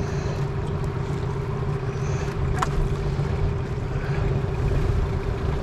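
Mercury outboard motor idling steadily on a small fishing boat, a constant low hum. A brief sharp knock about two and a half seconds in.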